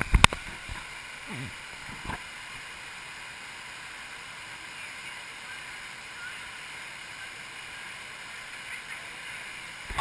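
Steady rush of a small waterfall pouring into a rock pool, with a few sharp clicks right at the start.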